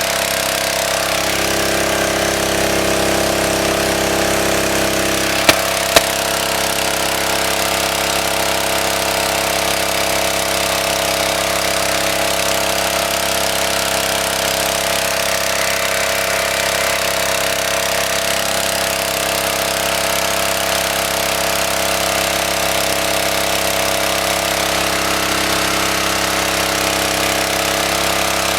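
Small petrol engine driving a water pump, running steadily at a constant speed, freshly cleaned carburettor and running smoothly. Two sharp clicks about half a second apart, some five seconds in.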